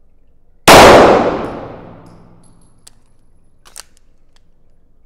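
A single handgun shot about half a second in, echoing off the walls of an indoor range and dying away over about two seconds. A couple of faint clicks follow.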